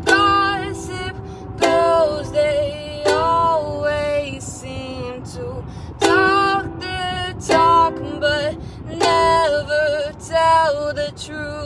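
Ukulele strummed in chords, a strong strum about every second and a half, each chord left to ring.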